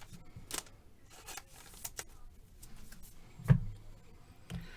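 Trading cards being handled on a table: light sliding and rubbing with small scattered clicks, and one louder knock about three and a half seconds in.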